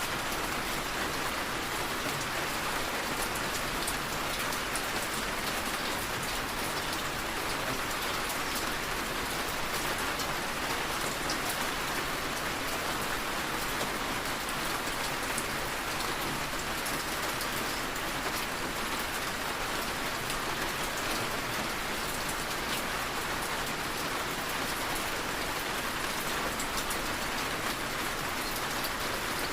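Steady rain falling and pattering on a surface, an even hiss with fine drop ticks and no change in intensity.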